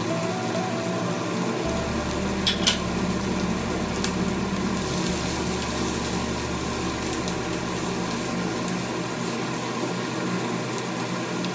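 Chicken frying in a pan with a steady sizzle, and two sharp clicks about two and a half seconds in.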